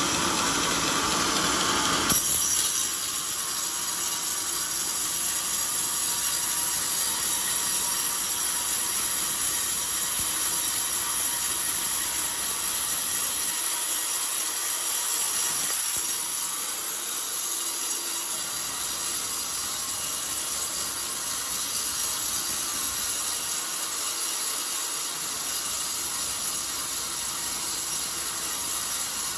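Band sawmill blade cutting lengthwise through a hard old coconut-palm beam as the log carriage runs on its rails, a steady, even hiss. About two seconds in there is a short sharp click, after which the lower rumble falls away.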